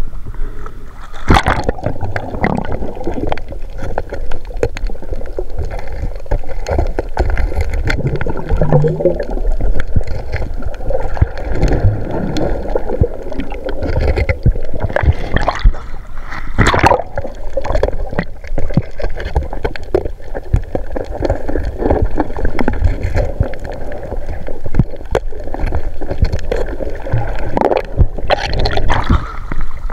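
Water sloshing and gurgling close to the microphone, unsteady throughout, with a few louder splashes standing out.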